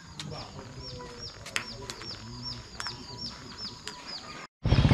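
Chickens clucking among quick high downward chirps repeating several times a second. Near the end the sound cuts out for a moment and a loud engine takes over, running close by.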